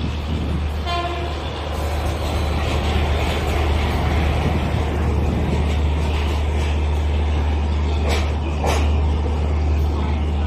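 Indian Railways WAP7 electric locomotive and its passenger coaches passing close by: a short horn toot about a second in, then a steady rumble and hum of the train running on the rails, with a couple of sharp clanks near the end.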